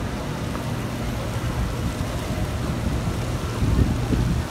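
CNR Changchun EMU-B electric trains running along the elevated viaduct, a steady low running noise mixed with city traffic, swelling louder about three and a half seconds in.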